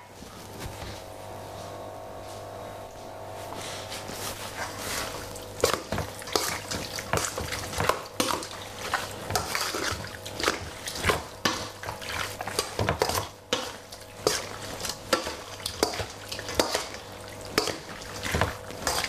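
Metal spoon stirring and scraping through raw diced chicken in a stainless steel mixing bowl, with repeated clinks of metal on metal and the wet slap of seasoned meat. The strokes come thick and irregular from about four seconds in.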